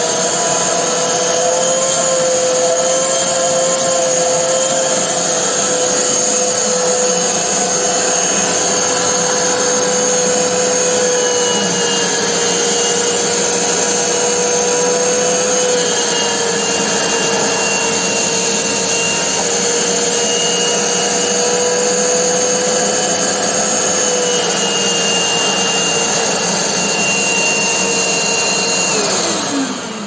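Shop-Vac Pro wet/dry shop vacuum running steadily, its motor giving a high, even whine. About a second before the end it winds down, the loudness dropping and the pitch falling.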